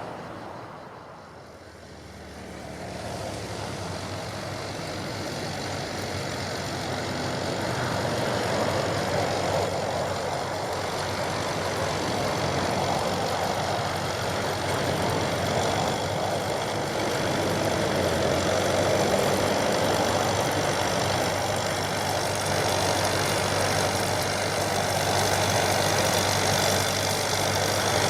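John Deere 5720 tractor's diesel engine running steadily with its round baler working. The sound grows louder from about two seconds in until around eight seconds, then holds steady.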